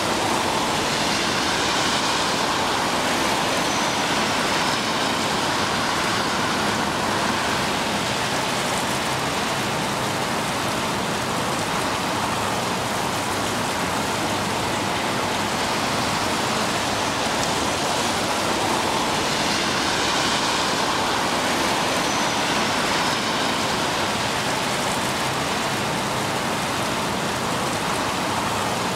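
Steady rain falling on shallow pools, mixed with trickling water, making an even hiss.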